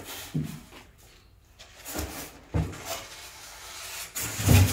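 Large PPS16F expanded-polystyrene insulation boards being handled and shifted by hand: dry scrapes of foam rubbing on foam, with a few dull knocks and a louder thud near the end.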